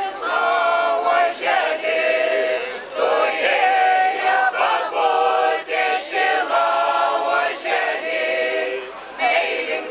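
Unaccompanied group singing of a Lithuanian folk song by a folk ensemble of mostly women's voices with a couple of men, sung in sustained phrases with short breaks between them.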